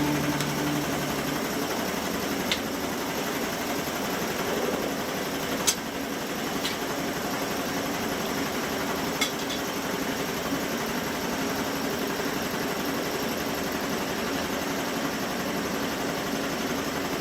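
Steady running noise of forge-shop machinery, with a few faint sharp metallic clicks in the first ten seconds.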